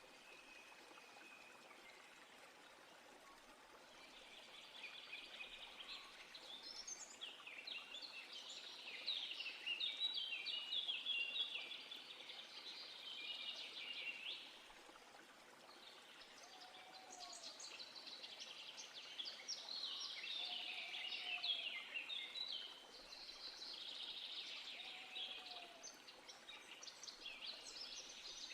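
Faint birdsong from several small birds: long runs of rapid, high chirps and trills with short gaps between them, and now and then a soft, lower whistle from another bird.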